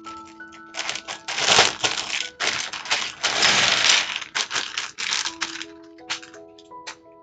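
Plastic bag of LEGO pieces crinkling and the bricks rattling as they are shaken and poured out onto a plastic sorting tray, loudest in two spells about one and a half and three and a half seconds in. Background music with held notes plays throughout.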